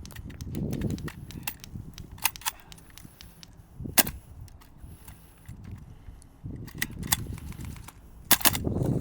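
Airsoft guns firing single shots at irregular intervals, sharp cracks, some fainter than others, the loudest about four seconds in and two close together near the end, over low rustling.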